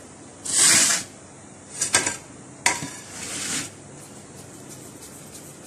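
Kitchen handling sounds: a brief brushing swish of hands working floured dough, then a few clinks and a knock of a ceramic plate on the counter, followed by a short scraping swish.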